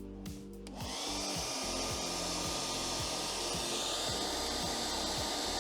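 A small electric motor with a fan running steadily, a whir and rush of air at one pitch, starting about a second in and cutting off abruptly.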